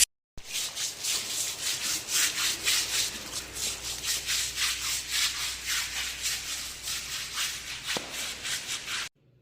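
Rhythmic rubbing strokes, about three a second, each a short hissy scrape, starting after a brief silence and cutting off suddenly near the end.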